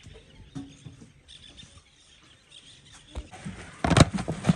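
Faint chattering calls of parrots in the background, then a short cluster of loud knocks and rustling near the end.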